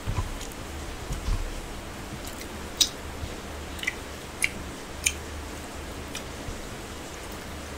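Eating with bare hands from steel plates: chewing and the soft squish of fingers mixing rice and curry, with scattered sharp clicks and smacks, the loudest about three seconds in. A steady low hum runs underneath.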